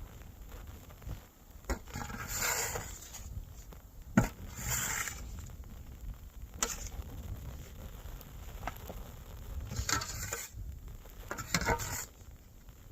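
Snow shovel scooping deep snow in several separate strokes, with a sharp knock about four seconds in. A low wind rumble on the microphone lies underneath.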